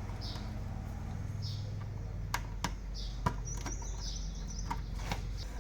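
Small birds chirping, a short chirp about once a second, over a steady low hum, with a few sharp clicks near the middle.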